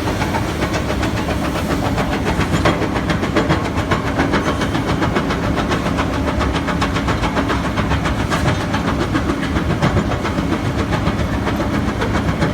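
Machine engine running steadily while a hydraulic bucket crusher works, its jaw crushing stone in a fast, even clatter.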